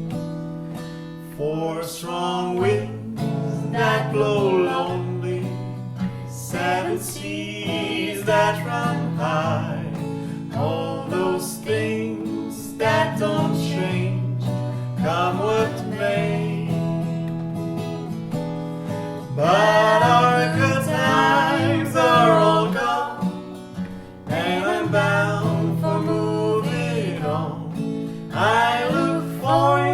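Acoustic guitar accompanying a singing voice, in a folk song.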